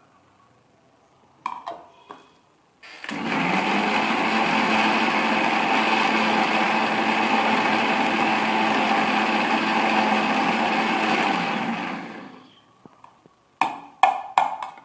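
Electric mixer grinder with a small steel jar running steadily for about nine seconds, grinding a wet paste, then spinning down. The steel lid clatters onto the jar about two seconds before it starts and clinks off near the end.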